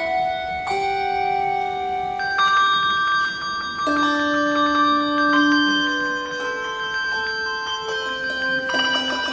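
Handbell choir playing a piece: bells struck a few at a time, their tones ringing on and overlapping, with a quick flurry of strikes near the end.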